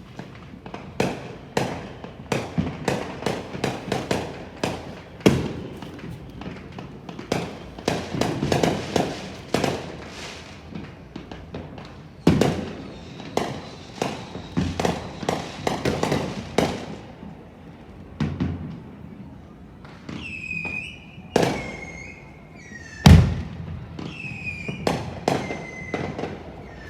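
Fireworks going off in rapid succession: many sharp bangs and crackles, with one especially loud, deep boom late on. Several short, high, falling whistles sound among the bangs in the last few seconds.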